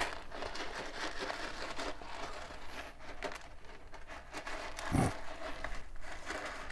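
Kitten scratching and stepping about in cat litter: a run of small, gritty crackles, with one heavier thump about five seconds in.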